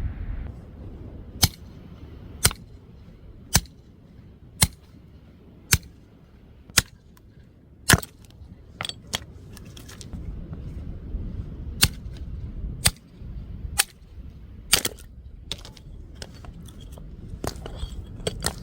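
A series of sharp knocks or blows, about one a second and evenly spaced, thinning out to scattered knocks near the end.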